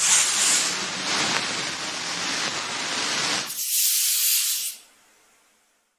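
Hissing sound effect, like spray or escaping steam, for about three and a half seconds. It then thins to a higher hiss for about a second and fades out.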